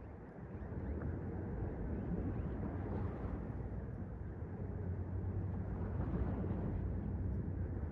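Sea surf washing onto the beach, a steady rushing with gentle swells, over a low wind rumble on the microphone.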